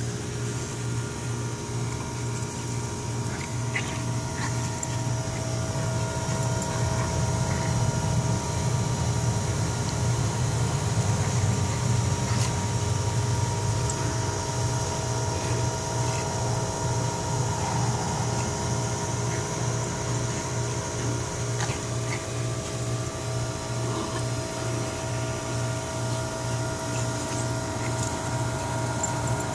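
A steady low mechanical hum with a few faint steady tones above it, unchanging throughout.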